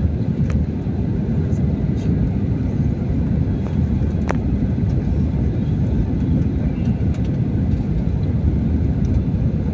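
Steady low rumble of jet engine and airflow noise inside the cabin of an Airbus A320-family airliner descending on approach with its flaps extended. A single click comes about four seconds in.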